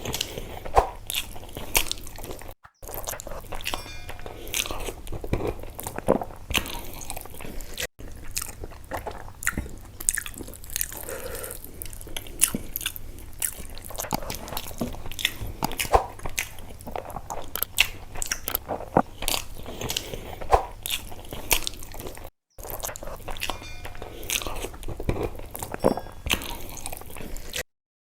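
Close-miked eating of rice and fish curry: irregular chewing, biting and crunching with wet mouth clicks. It breaks off into a short silence three times and stops abruptly near the end.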